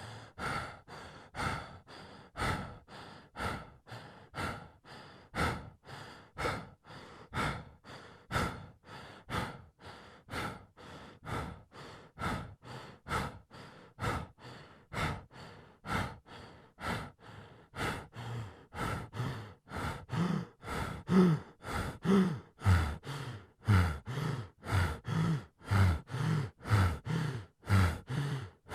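A person breathing heavily and fast, each breath in and out audible, about one full breath a second. About two-thirds of the way in the breaths grow louder and take on a low voiced groan.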